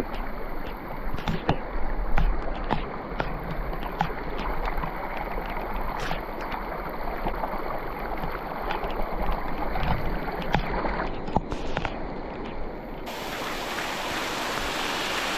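Heavy rain and running water in a steady wash of noise, with wind rumbling on the microphone and many scattered sharp taps of drops and knocks. About thirteen seconds in, the hiss turns brighter and fuller.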